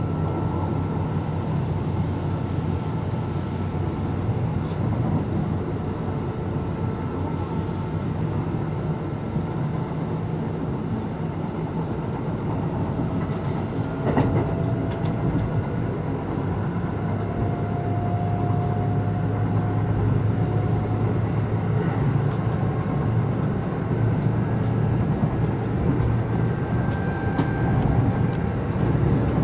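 Steady running noise heard from inside a Kintetsu 12200 series limited-express car at speed: the rumble of wheels on rail and the running gear, with faint whining tones above it. A single sharp knock comes about fourteen seconds in, and the noise grows a little louder in the second half.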